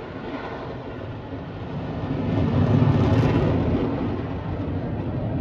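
Jet noise from a CF-18 Hornet fighter flying past overhead: a broad, steady rumble that dips and then swells again about halfway through.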